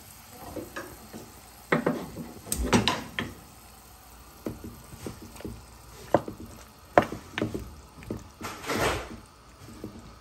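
A utensil stirring chicken soup in a pot, knocking and scraping against the pot with irregular clinks and a longer swish of liquid near the end.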